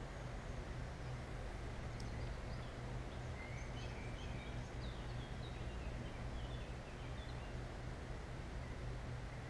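Riverside outdoor ambience: a steady low rumble and hiss, with faint small-bird chirps from about two to seven seconds in and a single soft click about two seconds in.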